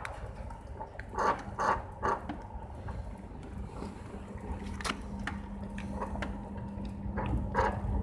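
Electric sliding-gate motor running with a steady hum that starts about a second in, its pinion driving the gate's toothed rack. A few short, sharp knocks come near the start of the hum.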